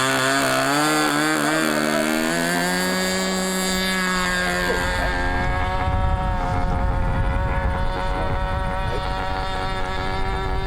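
Model airplane's nitro glow engine revving up, its pitch climbing unevenly over the first two or three seconds, then running steadily at high throttle.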